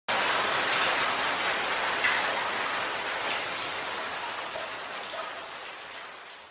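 Steady rain, an even hiss that starts suddenly and fades out gradually over the last few seconds.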